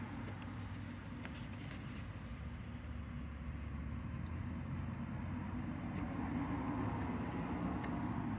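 Hands working a rubber seal into a plastic intake tube: faint rubbing, scraping and small clicks over a steady low hum.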